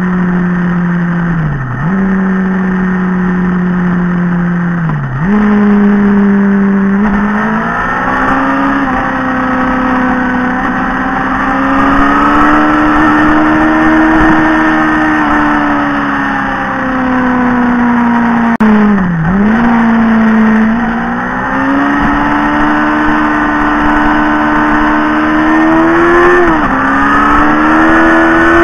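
Motorcycle engine running at road speed, its pitch mostly steady and climbing gently, dipping sharply and recovering four times, with rush of air and road noise.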